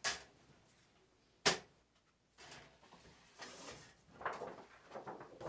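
Two sharp knocks of things being handled on a table, one at the start and a louder one about a second and a half in, then uneven rustling as a large paper sheet is picked up and handled.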